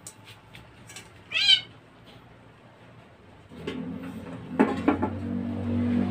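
A cat meows once, a short call about a second and a half in. Just past the middle a low steady droning hum comes in and grows louder, with a couple of sharp knocks.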